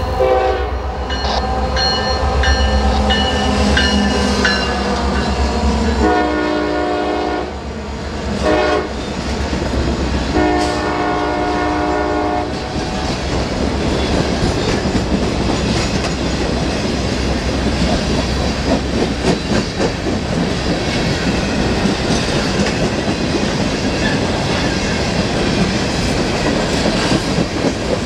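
Diesel freight train led by a pair of EMD SD40-3 locomotives, its air horn sounding long, long, short, long, the grade-crossing signal, over the rumble of the engines. After the horn the cars roll past, wheels clicking over the rail joints.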